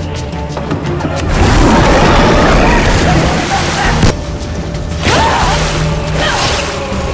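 Film soundtrack: music under loud booming crashes, with a pistol shot about four seconds in.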